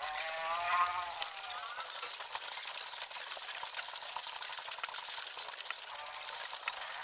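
A drawn-out bleat with a wavering pitch, about a second and a half long, right at the start. After it come small clinks of a spoon and fork on a plate over a steady hiss of rain.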